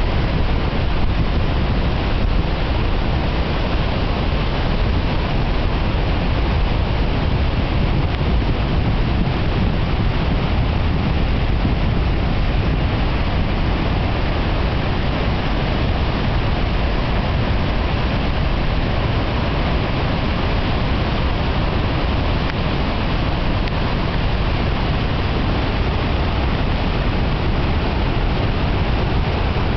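Steady, loud rushing of the Numedalslågen river in flood, its whitewater rapids churning past. The sound holds at one level without a break.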